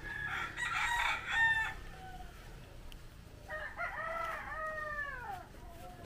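Roosters crowing: a rough call in the first second or so, then a long crow about three and a half seconds in that holds its pitch and falls away at the end.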